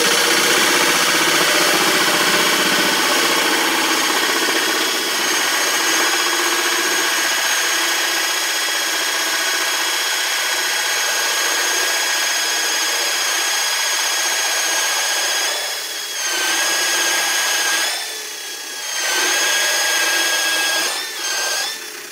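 Bench pillar drill running a 2.5-inch hole saw through an oak board: a loud, steady cutting noise over the motor's whine. The cut eases off briefly twice near the end, then the sound drops away as the cut finishes.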